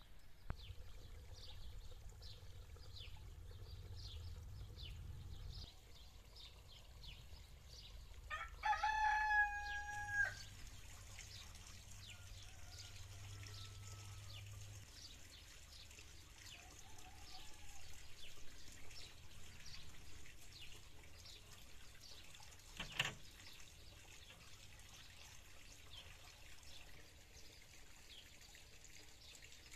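A rooster crowing once, loudly, about nine seconds in, over small birds chirping throughout and a low rumble; a single sharp knock comes later.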